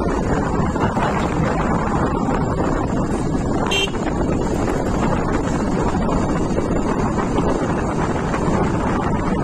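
Wind rushing over the microphone of a Bajaj Pulsar NS motorcycle riding at about 45 km/h, with the bike's running noise underneath. A brief high-pitched toot about four seconds in.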